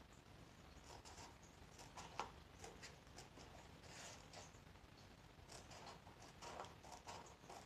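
Scissors cutting through a sheet of paper: a series of faint, short snips with some paper rustle.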